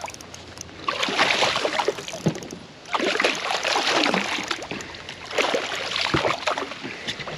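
A hooked largemouth bass thrashing and splashing at the surface beside a kayak, in three bursts of a second or so each, as it fights on a short line while being netted.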